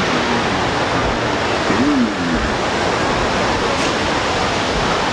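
Steady rushing of a large waterfall, a constant even roar of falling water, with faint voices in the background.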